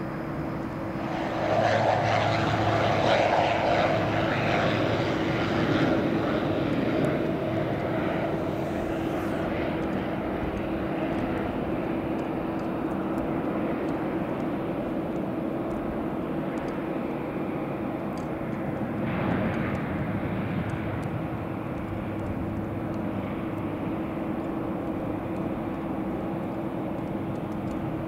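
Aircraft engines running at the airfield: a steady droning hum with a single tone held throughout. Engine noise swells and grows louder about a second and a half in, then settles to a steadier run, with another brief swell about two-thirds of the way through.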